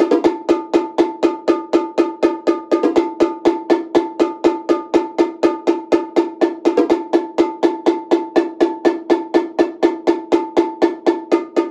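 Solo multi-percussion setup of congas and drums played with sticks: an even, unbroken stream of strokes, about five a second, each leaving a ringing pitched tone.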